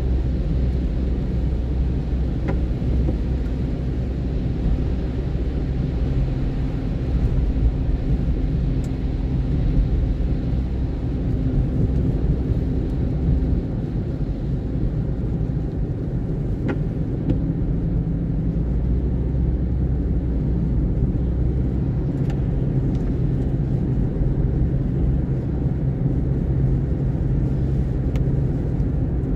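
Car driving on a wet road, heard from inside the cabin: a steady low engine hum with tyre noise, and a few faint clicks.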